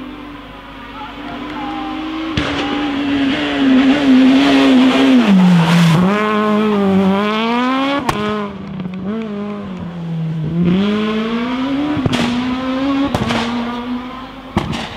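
Rally car engine at full effort on a special stage. Its pitch climbs and drops back several times through gear changes and braking, with sharp cracks at several of the changes, and it is loudest about four to six seconds in.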